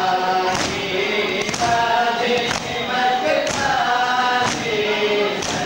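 A crowd of men chanting a noha (Shia lament) in unison while beating their chests together in matam, one sharp slap about every second.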